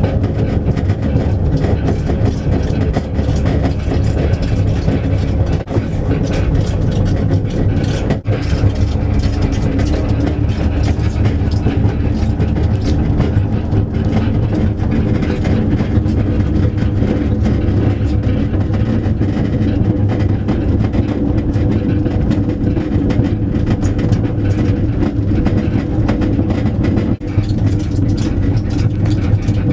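Steady rumble of a towed cart travelling along a paved road, heard from inside the enclosed cart, with two brief dips about a third of the way in and near the end.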